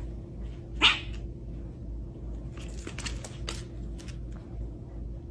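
Cats play-fighting: one short, sharp cry about a second in, then a few faint taps, over a steady low hum.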